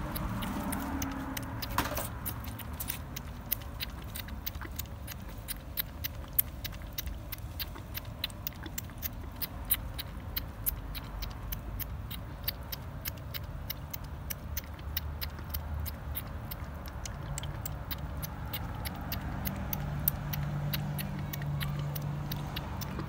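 Kitten lapping liquid from a bowl: a quick, uneven run of small clicks, several a second, over a steady low rumble, with a low hum coming in near the end.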